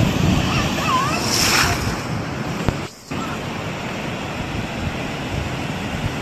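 Floodwater rushing through a village street: a steady roar of torrential water, mixed with wind buffeting the phone's microphone. The sound cuts out briefly about three seconds in.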